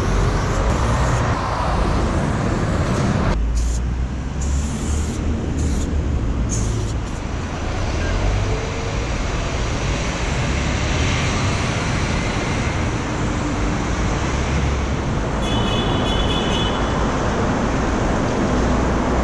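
Steady highway traffic noise under an overpass: a continuous rumble of passing cars and trucks.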